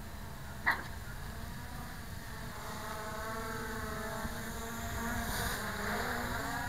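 MJX Bugs 3 quadcopter's brushless motors and propellers buzzing, the pitch wavering as it flies low. The buzz grows louder toward the end, over a low wind rumble on the microphone. A single sharp click comes just under a second in.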